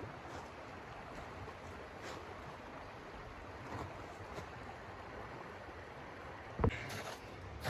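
Steady rushing wind of a snowstorm, with one sharp thump near the end.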